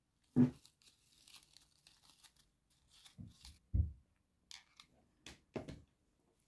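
Handling noise from crafting a ribbon hair bow: grosgrain ribbon rustling between the fingers, with several short, dull thumps against the table. The loudest thump comes about half a second in.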